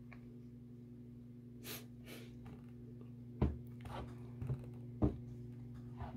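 Leather shoes with thick soles being handled and set down on a desk: two sharp knocks of a sole on the desktop about a second and a half apart, with softer bumps between them. A steady electrical hum runs underneath, and two soft breaths come before the first knock.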